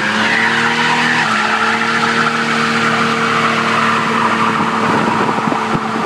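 Dodge Dakota pickup doing a burnout: a rear tire spinning and squealing against the pavement while the engine revs up and is then held at steady high revs. A few short crackles come near the end.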